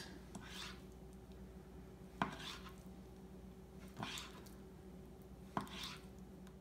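Kitchen knife slicing deer heart into thin strips on a plastic cutting board: three strokes about two seconds apart, each a sharp tap of the blade on the board followed by a short swish. A faint steady hum runs underneath.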